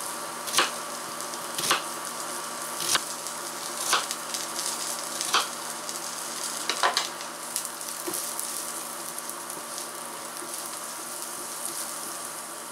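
Minced garlic sizzling steadily in oil in a pan, with a knife slicing an onion on a wooden cutting board: sharp knocks about once a second that stop after about seven seconds.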